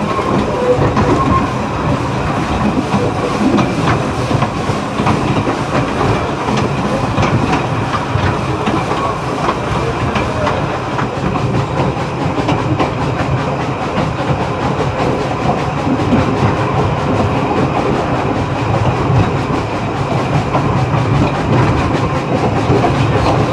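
A narrow-gauge train running along the line, heard from inside the leading passenger coach right behind the steam locomotive Corris Railway No 10. The wheels click over the rail joints amid the steady running noise of the coach.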